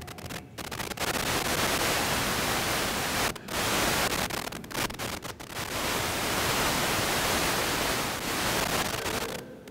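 Loud, even hiss of static with no tone in it, cutting out abruptly for brief moments several times: about half a second in, around three and a half seconds, twice around five seconds, and near the end.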